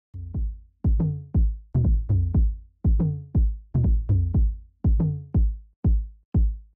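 Music with a bare electronic beat: deep bass-drum hits that drop in pitch and ring out, about two a second in an uneven, syncopated pattern.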